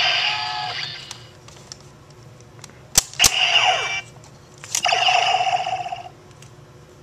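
Bandai DX Decadriver toy belt: its electronic sound effect fades out, then two sharp plastic clicks about three seconds in as the side handles are pulled open and the buckle turns. A short electronic chime with a falling sweep follows, and near the end comes a second, longer electronic tone with falling sweeps.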